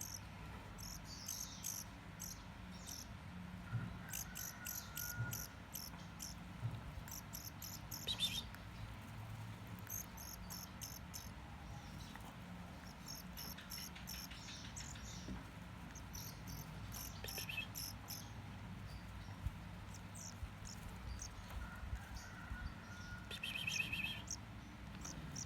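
Hybrid grey singing finch × black-throated canary singing: repeated phrases of rapid, high-pitched trilled notes separated by short pauses, with an occasional lower whistled note.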